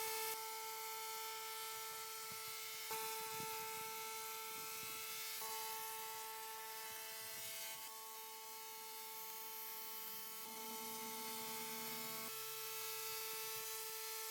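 SFX laser cleaning machine running, giving a steady electric buzzing hum with several overtones. The tone pattern shifts slightly a few times as the laser works.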